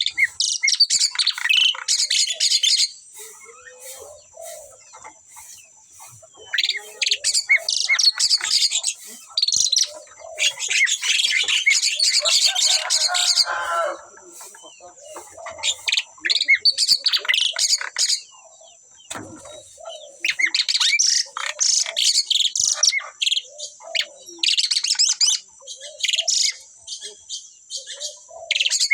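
A pair of Asian pied starlings singing in repeated bouts of rapid, varied notes, each bout a few seconds long with short pauses between.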